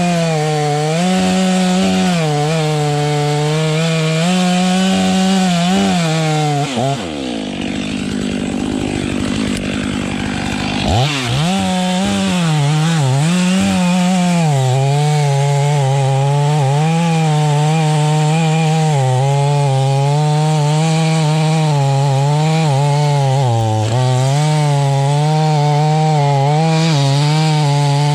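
Chainsaw engine running at high revs while cutting through a tree, its pitch wavering as the chain bites into the wood. About seven seconds in the pitch drops away, and about four seconds later it revs back up.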